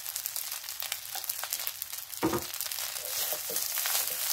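Tomato rice sizzling in a hot wok while it is stirred and tossed with two wooden spatulas, with many small clicks and scrapes of wood on the pan. It gets louder near the end.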